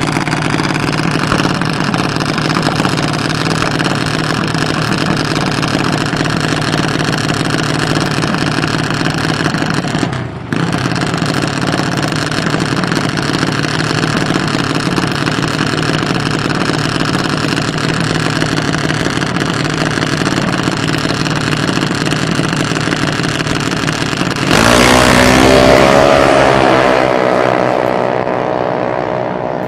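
Junior dragster's single-cylinder engine idling steadily, with a brief dip about a third of the way in. Near the end it revs hard as the car launches down the drag strip; the pitch climbs, then falls, and the sound fades as the car pulls away.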